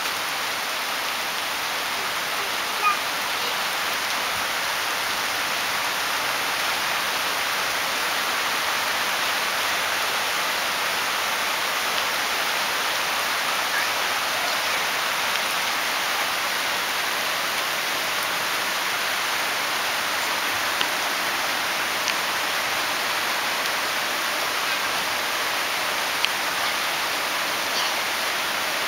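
Rain falling steadily, an even hiss with a few faint ticks.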